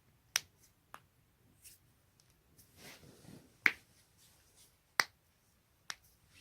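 Spinal joints cracking: five sharp pops, the two loudest about three and a half and five seconds in.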